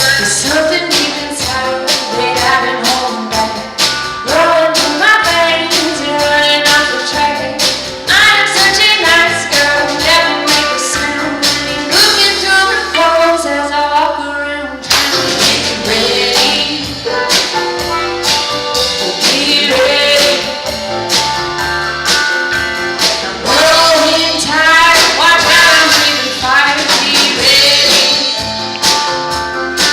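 Band music with a woman singing over a banjo played through a wah-wah effect.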